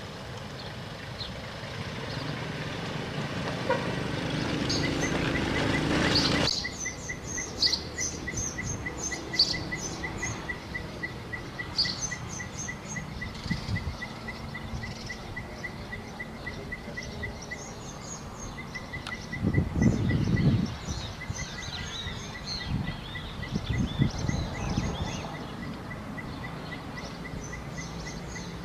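Outdoor birdsong: scattered chirps, with one high note repeated rapidly and evenly for most of the time. A rising rush of noise cuts off suddenly about six seconds in, and short low rumbles come twice in the latter half.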